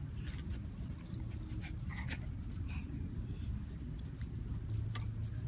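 Light metallic jingling and clicking of small dogs' leash clips and tags as they sniff about, over a steady low rumble, with a couple of brief high squeaks about two to three seconds in.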